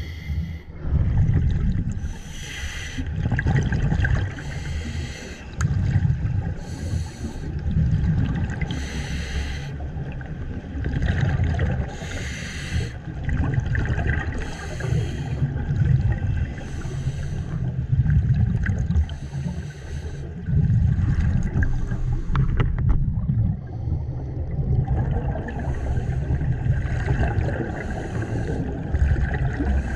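Scuba diver breathing through a regulator underwater: a hiss with each breath and a low rumble of exhaled bubbles, repeating about every two seconds, with a short lull a little after the middle.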